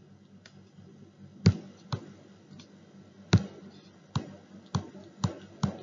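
About ten irregular, sharp clicks, two of them much louder, from the pen input as Hindi handwriting is put stroke by stroke onto a digital slide.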